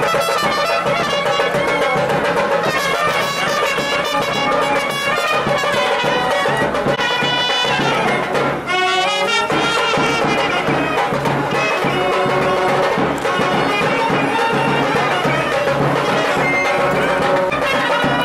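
Music with brass instruments such as trumpets, starting abruptly and playing at an even level.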